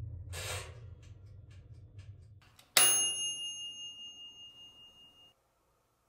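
A single bright ding, like a small bell or timer chime. It is struck once about three seconds in and rings out for over two seconds before cutting off. A brief hiss comes near the start.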